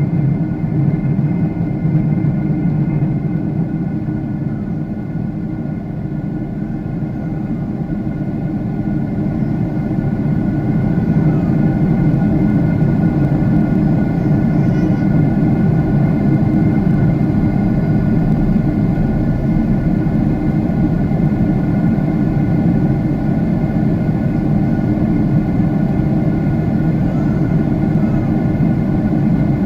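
Jet airliner cabin noise in flight: a steady, loud low drone of the engines and airflow heard from inside the cabin, with a few faint thin tones above it.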